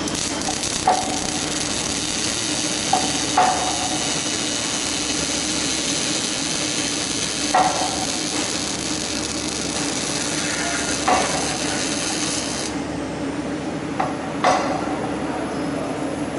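Robotic arc-welding torch welding a steel scaffolding-plank frame: a steady crackling hiss of the arc and spatter that cuts off suddenly about 12 to 13 seconds in. A steady machine hum runs underneath, with a few sharp metal clanks.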